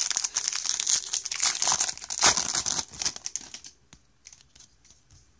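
Foil wrapper of a baseball card pack being torn open and crinkled by hand, in a dense crackle that stops about three and a half seconds in, leaving only a few faint ticks.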